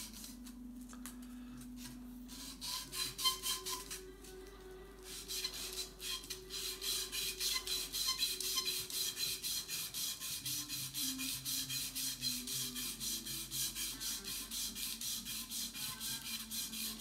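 Sandpaper rubbed back and forth by hand on the side of a pool cue's freshly installed tip where it meets the ferrule, sanding it flush. A few strokes about three seconds in, then quick, even strokes, about four a second, from about five seconds in.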